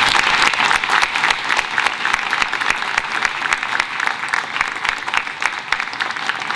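Audience applauding: many people clapping their hands, a dense, continuous run of claps.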